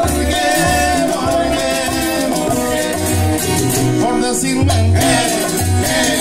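Live Cuban guaracha played by a small son group: strummed acoustic guitar, shaken maracas and bongos keeping a steady dance rhythm.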